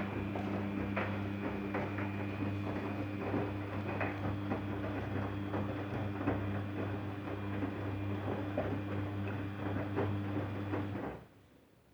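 Daewoo DWD-FT1013 washing machine running its wash cycle: a steady motor hum with irregular clicks and knocks from the turning drum. The sound stops suddenly near the end.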